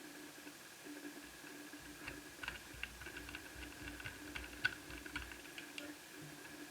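Light, irregular clicks and taps of small plastic and metal netbook parts being handled and fitted by hand during reassembly, over a faint steady hum.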